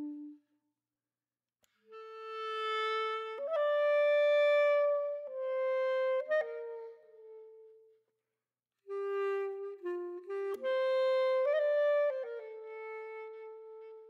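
Background music: a slow solo woodwind melody of long held notes, in two phrases with a short silent break near the middle.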